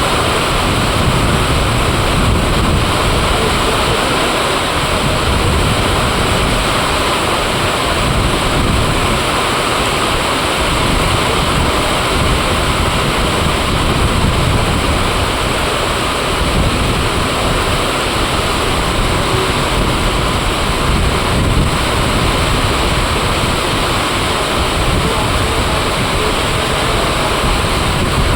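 Heavy rainfall as a steady, loud hiss, with strong wind gusting and rumbling on the microphone.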